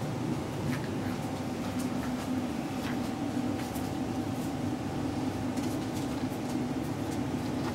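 A steady low hum runs throughout, with faint scattered scratches and taps from puppies scuffling on carpet and a cushioned dog bed.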